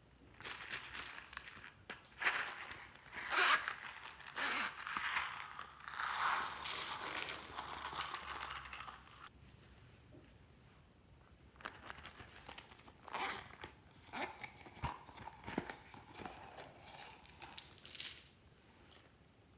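Glossy slime being handled and mixed by hand: irregular sticky, squishing noises in two spells, with a pause of a few seconds in the middle.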